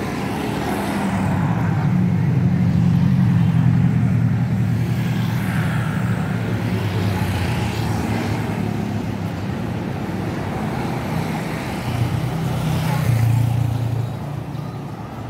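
Street traffic: the engines of passing cars and motorcycles running at close range. The rumble swells for several seconds from about a second in, and again near the end as another vehicle goes by.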